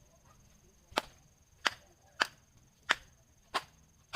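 Six sharp, short knocks, one about every two-thirds of a second.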